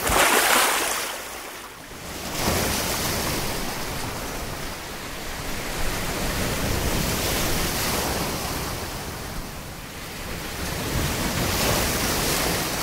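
Sea waves breaking and washing in the surf: a loud, continuous rush that swells and eases, with a brief lull about two seconds in.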